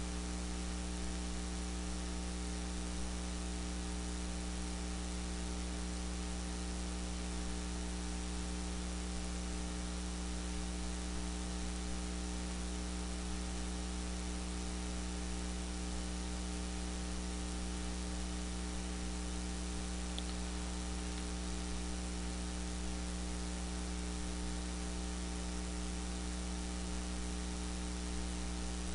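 Steady electrical mains hum with a stack of constant tones over a hiss, unchanging throughout.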